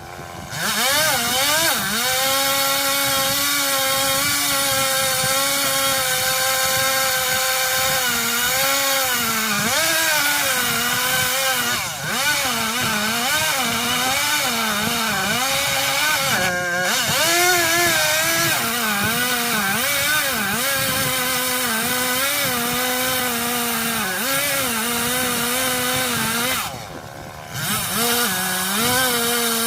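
Stihl MS 170 two-stroke chainsaw at full throttle cutting wood with a semi-chisel chain. Its engine pitch wavers and sags as the chain bites under load. The saw drops off throttle briefly near the end, then revs back up.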